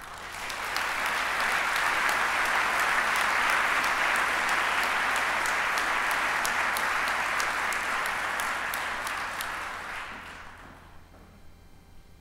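Audience applauding: the clapping swells within the first second, holds steady, and dies away about ten to eleven seconds in.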